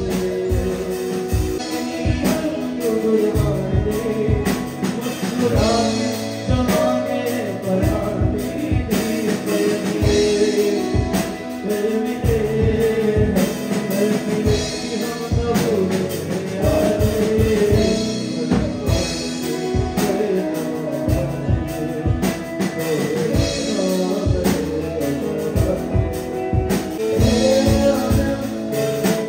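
Live band playing a song: a man singing into a microphone over electric guitar, drum kit and keyboard, with a steady drum beat.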